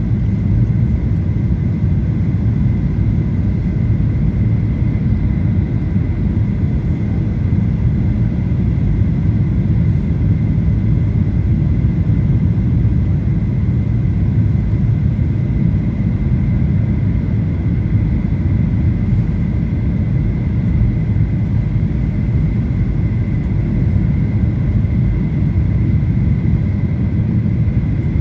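Steady cabin noise inside a Boeing 737-800 descending on approach with flaps extended: a low rumble of engines and airflow with a faint steady high whine.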